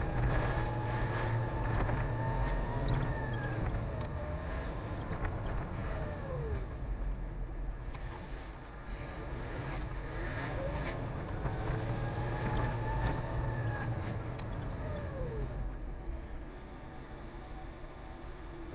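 Concrete mixer truck's diesel engine running on the road, with a higher whine that rises and falls twice as the truck speeds up and slows.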